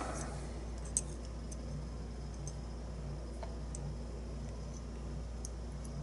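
A few faint, sparse metal clicks and ticks, one sharper about a second in, from a small steel tool handled against a lock cylinder housing. A steady low hum runs underneath.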